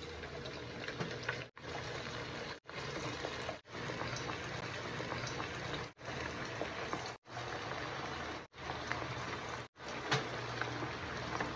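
Tuna nuggets deep-frying in hot oil in a pan: a steady bubbling sizzle, cut off briefly about eight times by sudden short dropouts.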